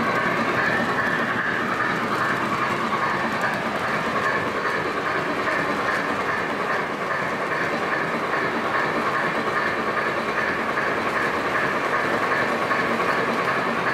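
O gauge three-rail model train running, heard from a flat car behind the steam locomotive: a steady rolling rumble of wheels on track with a regular clicking about two or three times a second.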